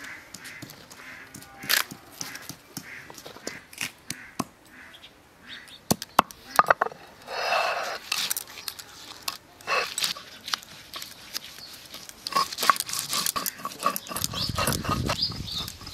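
Garlic being crushed and ground on a flat stone slab with a stone roller (sil-batta): irregular sharp knocks and scraping that grow denser near the end. It follows a few knocks of cut taro stalks dropped into a steel bowl, with a brief call about halfway through.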